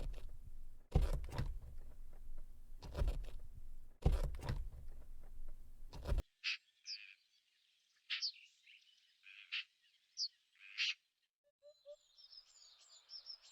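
A rough noise with several knocks, cut off abruptly about six seconds in, then bird calls: short high chirps about once a second, and a quicker run of chirping notes near the end.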